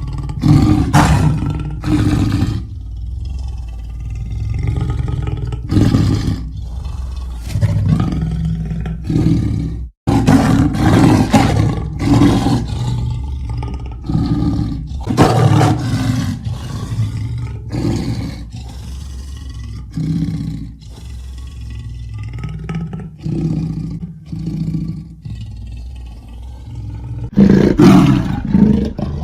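Leopard calling: a long series of deep, rough grunting roars, loud strokes coming in groups with short pauses between. The sound drops out for an instant about ten seconds in.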